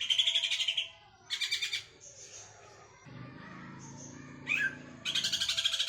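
Green leafbird (cucak ijo) in ngekek: fast, high, rapidly pulsed chattering in bursts, one at the start, a short one about a second later, and a longer one starting about five seconds in.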